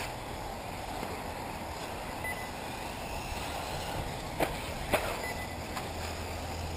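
1/8-scale electric off-road RC buggies racing on a dirt-and-carpet track: a steady hiss, with two sharp knocks about half a second apart a little past the middle.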